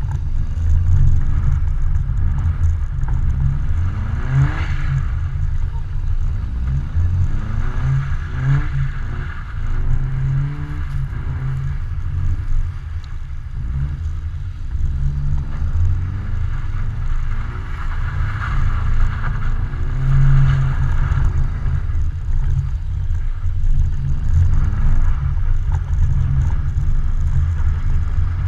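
Car engine revving up and down again and again as the car is slid sideways on ice, heard from outside the car over a heavy low rumble.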